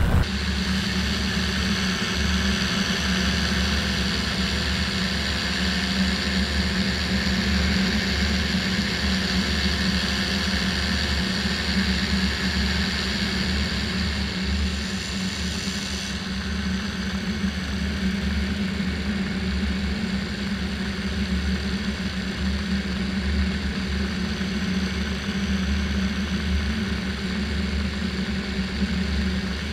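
Vittorazi Moster 185 single-cylinder two-stroke paramotor engine and propeller running at a steady cruise throttle in flight, an even, unbroken drone.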